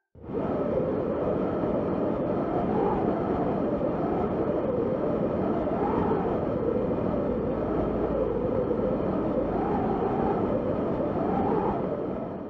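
Strong wind: a steady rushing with a faint howl that rises and falls.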